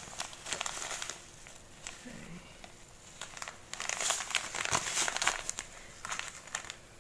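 Clear plastic bag of sugar and salt scrub crinkling as it is handled and put down, with a busier run of crinkles about four to five seconds in.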